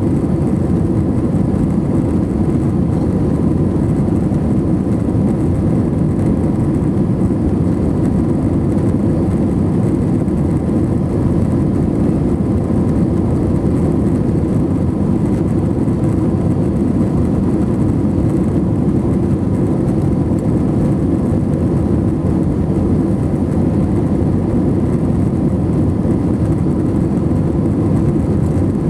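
Steady low rumble of an Airbus A321-231's IAE V2500 jet engines and airflow, heard from inside the passenger cabin, with a faint steady whine above it.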